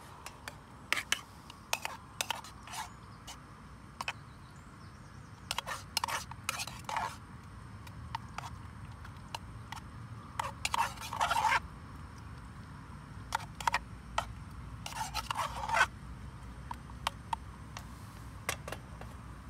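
A metal spoon scraping and clinking against a metal canteen cup as chicken is stirred into sauce. It makes scattered sharp clinks and several longer scrapes, the longest about 10 to 11.5 seconds in and again around 15 to 16 seconds.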